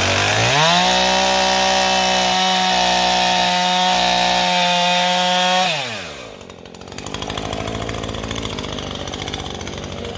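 Husqvarna two-stroke chainsaw revved from idle up to full throttle and held at a high steady pitch for about five seconds, then released; the pitch falls away and the engine drops back to a rough idle.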